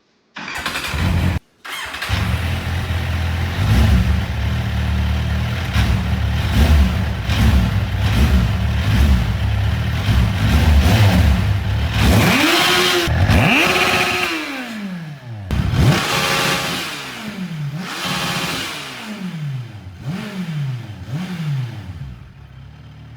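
Kawasaki Z1000's inline-four engine running at a steady idle, then revved several times from about halfway through. Each blip rises and falls in pitch, and the later blips are shorter.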